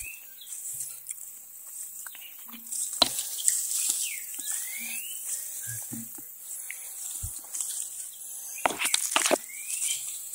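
Leaves and twigs rustling and crackling as jocote fruit are pulled from a tree branch by hand. The loudest rustles come about three seconds in and again near the end. A short rising whistled call recurs a few times in the background.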